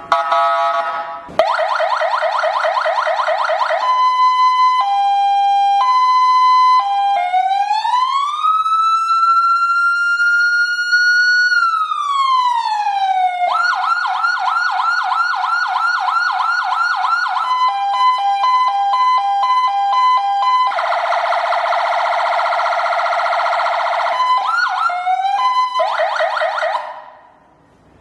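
Built-in electronic alarm of a KM205-88SP LED strobe warning light, cycling through its siren tones: fast warbles, a two-tone hi-lo, a slow wail that rises, holds and falls, and rapid yelps. It stops about a second before the end.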